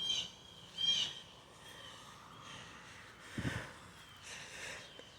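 A bird chirping repeatedly with short, high, arched notes, with two louder calls right at the start and about a second in. A brief low sound comes about three and a half seconds in, and a soft breath-like hiss follows about a second later.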